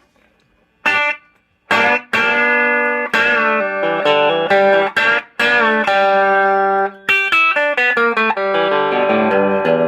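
Guitar playing a country-flavoured single-note lick in G major, using the E minor pentatonic (E blues) shape so that it sounds major. After a short note about a second in, the phrase runs on as a string of picked notes with a few bent notes.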